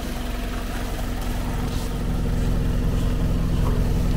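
Engine running steadily at idle, its low hum growing slightly louder over the few seconds.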